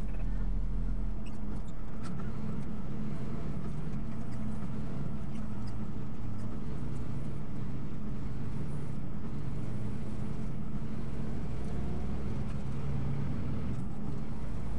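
Steady vehicle engine and road noise heard from inside a moving vehicle at freeway speed, a continuous low hum.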